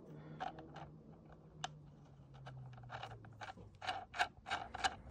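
Light metallic clicks of a steel nut being handled and turned by hand on the freshly repaired thread of a crankshaft end. The clicks are scattered at first and come more often in the second half.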